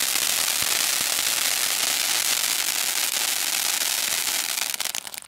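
A 'Rockstar' anar, an Indian ground fountain firework, hissing steadily with scattered crackles as it sprays sparks. It burns out and stops suddenly near the end.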